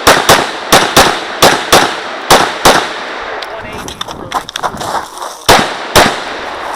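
Glock 34 9mm pistol firing rapid pairs of shots, each pair about a quarter second apart, with echo after each. Four pairs come in the first three seconds, then a gap of about two and a half seconds with only quieter sounds before another pair.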